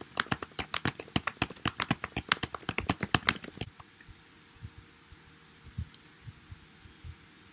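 Fast typing on a computer keyboard: a quick run of key clicks for about three and a half seconds, then a few scattered keystrokes.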